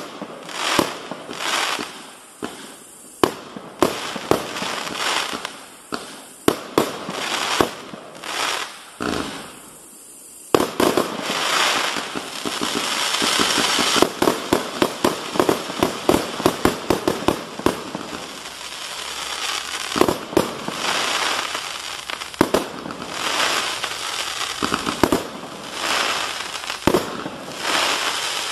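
A 144-shot straight compound firework cake with 25 mm tubes firing. For the first ten seconds the shots come singly, about one a second; from about ten seconds in they come in a rapid run of bangs over a steady hiss.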